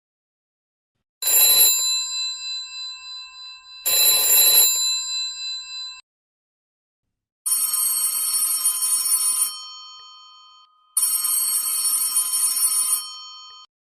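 Cellphone ringtones played one after another. First comes a ring sounding twice, about three seconds apart, each one dying away. After a gap, a different trilling electronic ring sounds twice, each lasting about two seconds.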